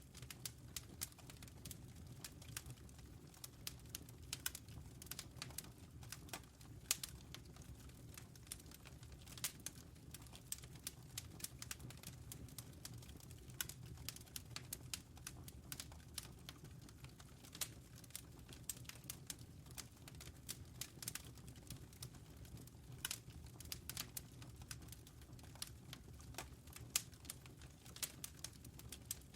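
Campfire crackling: irregular sharp pops and snaps, some louder than others, over a low steady rumble.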